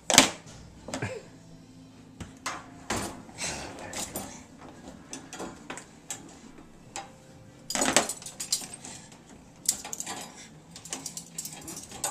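Metal spoons dropping and clattering in a dishwasher's silverware basket and rack: a string of irregular clinks and knocks, loudest just after the start and again about eight seconds in.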